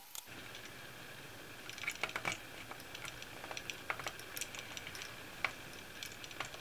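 Scattered small clicks and light taps as the plastic housing of an AEMC SL261 clamp-on current probe is handled and a retaining pin is drifted out to open it, with a little cluster of clicks about two seconds in.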